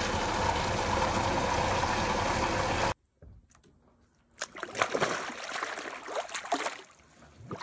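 Water gushing steadily from a truck's thick hose into a shallow above-ground pool, cutting off abruptly about three seconds in. After a second of near silence come small splashes and lapping of water in the full pool.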